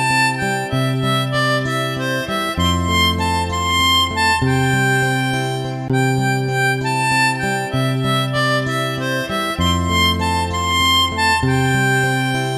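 Background music led by a harmonica-like melody over a steady accompaniment with a repeating bass line.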